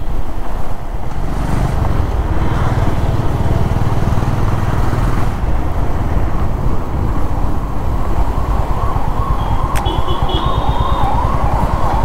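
Honda CB350 motorcycle engine running steadily under way in city traffic. Over the last few seconds a wavering, siren-like tone rises and falls about twice a second.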